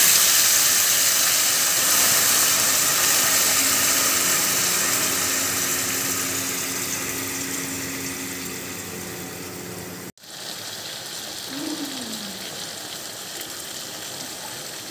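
Water poured into a hot wok of fried chicken gizzards, hissing and sizzling loudly as it hits the hot oil, then a steady bubbling hiss that slowly fades. After a cut about ten seconds in, a quieter sizzle of the pan cooking down.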